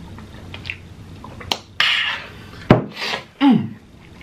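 A man drinking from a glass of water, then a breathy exhale, a sharp knock as the glass is set down about two-thirds of the way in, and two short vocal sounds that fall in pitch.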